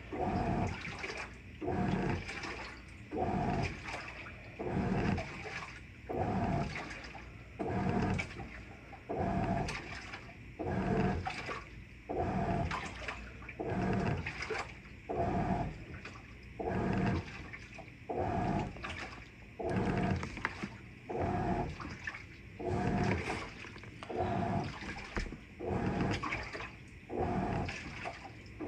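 Avanti top-load washing machine agitating a load in water: the wash plate drives in regular strokes about once a second, each with a motor whir and a swish of water and clothes.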